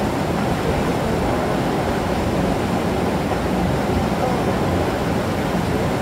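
Waterfall rushing steadily into a pool, an even wash of falling-water noise.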